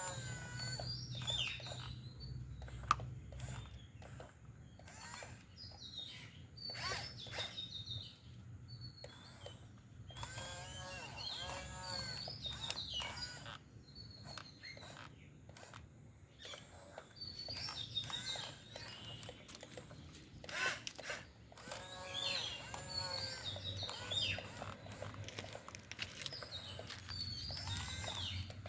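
Small birds chirping and singing repeatedly in short bright phrases, over a low steady hum.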